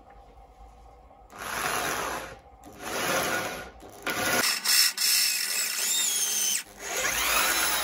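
Electric hand drill boring into the steel plate of a homemade lathe bed, in four runs with short pauses between, starting about a second in.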